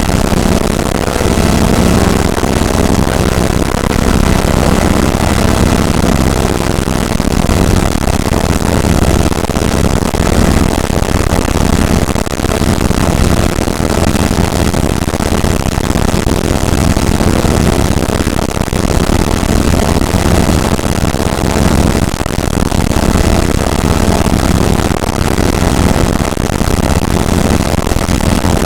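Experimental software synthesizer producing an engine-like sound effect: a loud, steady, dense low rumble, much like an idling motor, that holds without a break.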